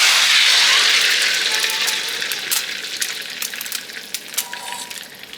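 Beaten eggs sizzling loudly as they hit hot bacon fat in a pan, the hiss starting suddenly and gradually dying down, with scattered crackling pops.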